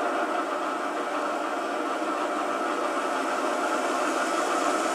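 Phoenix PB-11 sound system in a G-scale USA Trains SD70MAC model locomotive playing its diesel engine sound, a steady whirring run with no deep bass, from the model's small onboard speaker.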